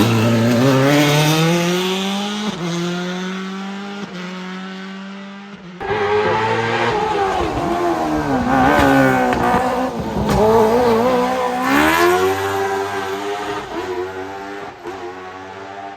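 Hill-climb race cars accelerating hard past on the course, engine pitch climbing and dropping through gear changes. One car fades away, then another car passes loud and revving from about six seconds in, fading toward the end.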